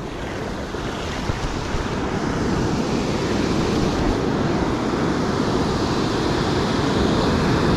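Ocean surf breaking on a beach: a continuous wash of waves that grows steadily louder, with wind buffeting the microphone.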